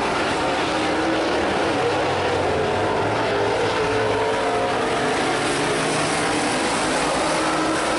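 Several super late model V8 race car engines running hard together around a dirt oval, their overlapping engine notes wavering as the cars circulate.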